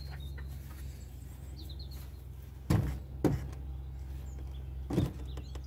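Three knocks as a wooden beam of an overhead timber frame is grabbed and handled: two close together about halfway through and one more near the end. Small birds chirp faintly, over a steady low hum.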